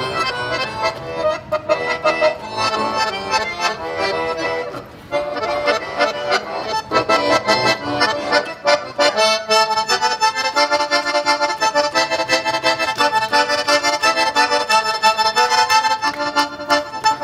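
Accordion playing a folk tune in sustained chords and melody, amplified through a stage sound system, with a brief pause about five seconds in.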